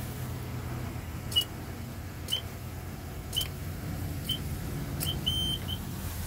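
Car wash entry keypad beeping once for each of five key presses, about a second apart, as a five-digit wash code is entered. A longer beep follows near the end, with a short one just after it.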